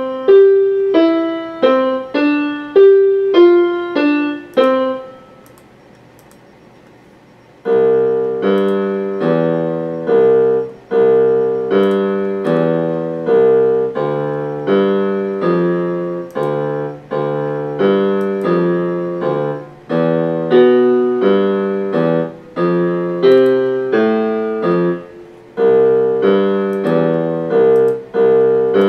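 Casio electronic keyboard played on a piano voice. A plain one-note-at-a-time melody stops after about five seconds; after a short pause the tune starts again fuller, with chords and bass notes under the melody.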